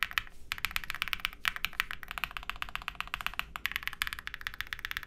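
Fast typing on an OwLab Jelly Epoch mechanical keyboard with lubed, filmed Durock POM linear switches, a polycarbonate plate and SA-profile keycaps: a rapid stream of keystrokes with a few brief pauses.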